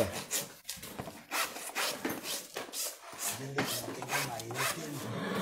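Farrier's hoof rasp filing a horse's hoof, a series of rough scraping strokes as the hoof is levelled for shoeing.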